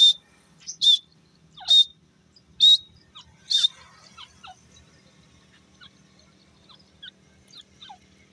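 A francolin (teetar) calling: five loud, sharp notes about a second apart, then it falls quiet while fainter short chirps carry on.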